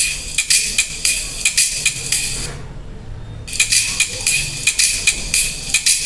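Music played through a ZIPP RD02 8-ohm silk dome tweeter fed through a series capacitor: only the treble comes through, a thin, tinny hiss with a quick steady beat of ticks and almost no bass. The highs drop out for about a second midway.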